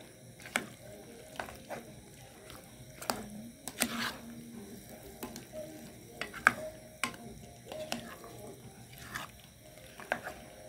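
Plastic spoon stirring diced potatoes in tomato sauce in an aluminium pot: irregular knocks and scrapes against the pot's sides, about a dozen, over a faint sizzle from the pot on the heat.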